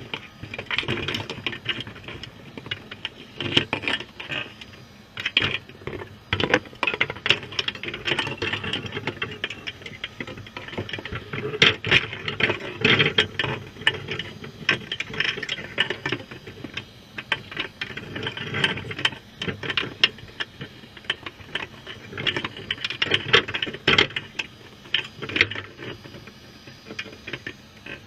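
Irregular underwater clicking and rattling, crabs' claws and legs knocking and scraping against the wire mesh of a crab trap, with denser flurries now and then.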